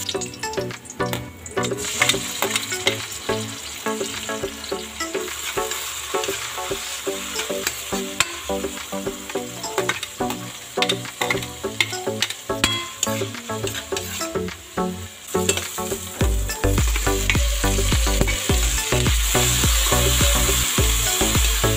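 Ginger, onions and tomatoes sizzling in hot oil in a metal wok, stirred with a metal ladle that scrapes and clicks against the pan. Background music runs underneath, with a heavier low beat in the last few seconds.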